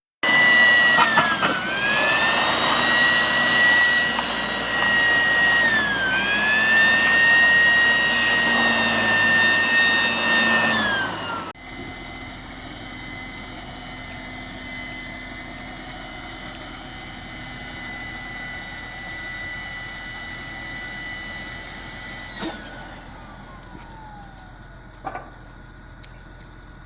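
A small boat's engine running with a high whine that dips and recovers twice. About eleven seconds in it cuts abruptly to a quieter steady hum, and near the end a whine falls steadily in pitch as it winds down.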